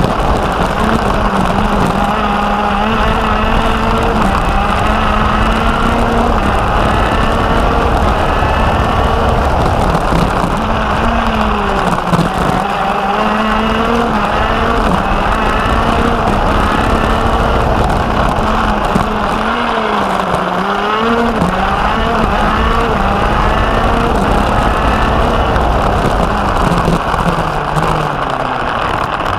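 Racing go-kart engine heard from on board, running hard at high revs. Its pitch drops briefly twice, about twelve and twenty seconds in, as the kart slows for corners, then climbs again as it accelerates.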